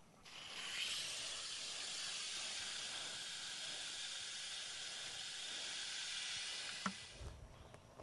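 Garden hose spray wand watering plants: a steady hiss that starts just after the beginning and cuts off sharply about seven seconds in, with a short click just before it stops.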